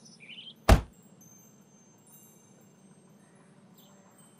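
A cartoon sound effect: one sharp, short click a little under a second in, the toy robot's battery compartment lid snapping shut. A few birds chirp just before it.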